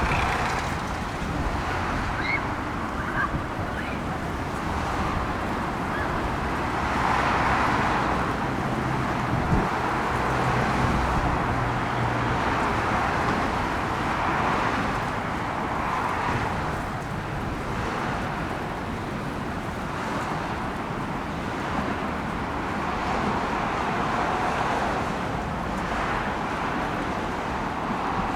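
Steady road traffic, with cars swelling and fading as they pass every few seconds.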